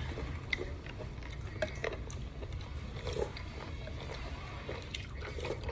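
A man chewing a mouthful of noodle soup, with scattered short clicks over a steady low hum.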